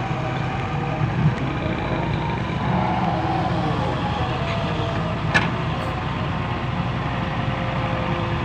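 Volvo EW130 wheeled excavator's diesel engine running steadily as the boom swings and the bucket digs into canal mud, with one sharp knock a little past halfway.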